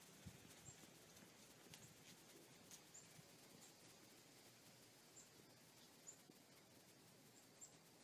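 Near silence, broken by about a dozen faint, short, high chirps from small birds, scattered irregularly.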